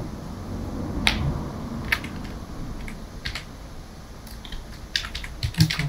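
Typing on a computer keyboard: a few separate keystrokes, then a quicker run of keys near the end.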